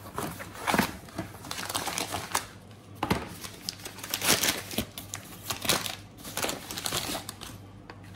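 Cardboard mailer box being handled and opened by hand, with a run of scrapes, rustles and irregular sharp clicks, and a louder knock at the very end.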